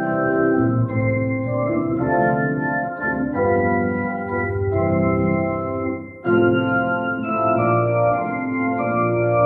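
Organ playing slow, sustained chords that change about once a second, with a brief break about six seconds in before the next chord.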